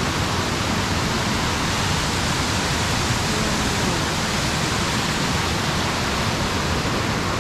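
Waterfall rushing, a steady, even hiss of falling water.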